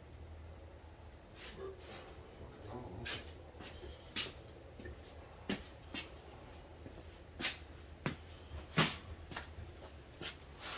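Irregular light clicks and knocks of tools or metal parts being handled, the loudest a little before the end, over a low steady hum.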